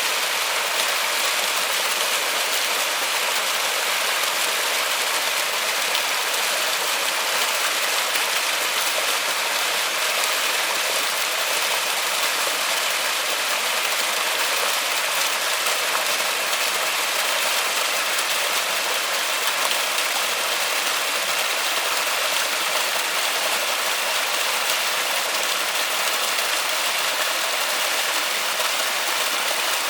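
Steady rain falling on a water surface: a dense, even patter of drops with no let-up.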